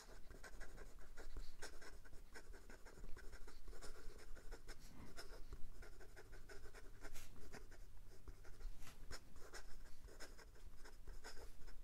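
Kanwrite Legacy fountain pen's nib scratching across notebook paper in a quick run of short cursive strokes. It writes wet, with no skipping.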